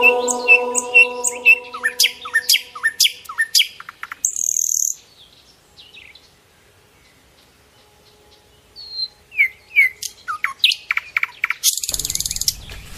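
Small birds chirping in quick runs of short notes that slide down in pitch. They fall quiet for a few seconds midway and then start again. There is a brief high hiss a little before the middle and a louder rushing noise near the end.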